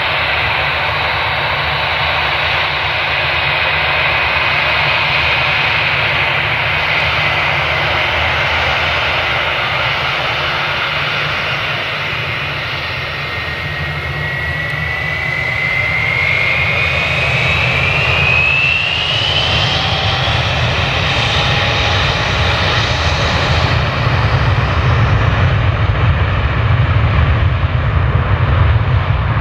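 Airbus A321-231's IAE V2500 turbofans whining at low thrust as the jet lines up on the runway. About halfway through the whine rises in pitch as the engines spool up to takeoff thrust, and a deep rumble grows louder near the end as the takeoff roll begins.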